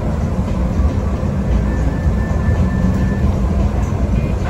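Las Vegas Monorail train running at speed, heard from inside the car: a steady low rumble of running noise, with a faint high whine that comes and goes.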